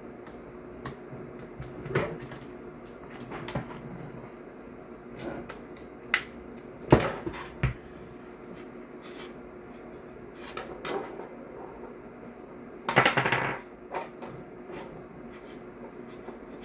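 Sporadic clicks, taps and knocks of airsoft rifle parts being handled and worked loose during disassembly. The sharpest clack comes about seven seconds in, and a short scraping rattle comes near the end.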